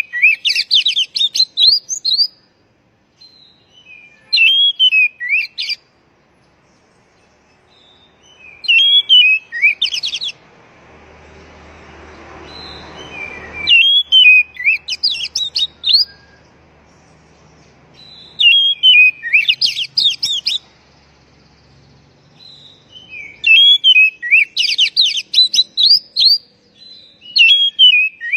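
Oriental magpie-robin (kacer) calling: the same short phrase repeated about every four to five seconds, a curling whistled note followed by a quick run of high sweeping notes. A faint hiss swells up in the middle and cuts off suddenly.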